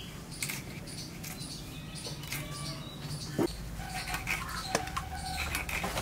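A koi (climbing perch) being cut and scraped against the blade of a boti, a floor-mounted curved cutting blade, making a run of short, irregular rasping scrapes.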